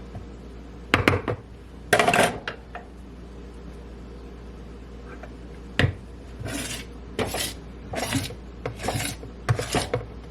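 A utensil knocking and scraping against a bowl while muffin batter is scooped out: a few sharp knocks, then a run of short, irregular scrapes near the end.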